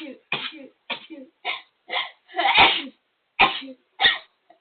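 A person sneezing over and over in a rapid fit: about eight short, sharp sneezes roughly half a second apart, the longest and loudest a little past halfway through.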